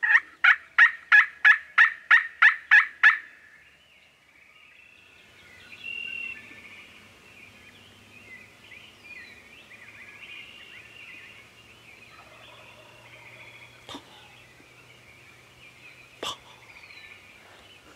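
A hunter's turkey call run close by: a quick series of about ten evenly spaced hen yelps over roughly three seconds, meant to draw in gobblers that are answering from the roost. Faint songbird chatter and a steady low hum follow, with two sharp clicks near the end.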